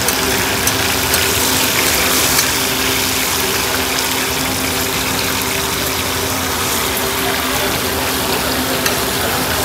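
Chicken pieces and potato fries sizzling steadily in a wide pan of hot oil, with a few sharp clicks of the metal spatula against the pan as they are stirred.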